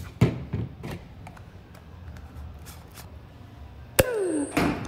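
Green gas can nozzle clicking against the fill valve of a 40 Max gas grenade canister as it is charged with gas, three short clicks in the first second over a low hum. Near the end comes a sudden loud bang with a falling tone after it, then a second loud burst.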